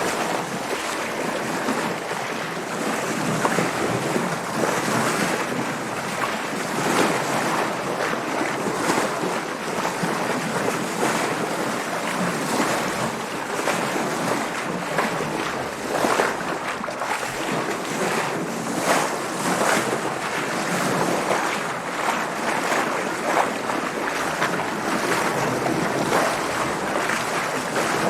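Water splashing and sloshing against a sailboat's hull as it sails through waves: a continuous rush broken by frequent, irregular short splashes.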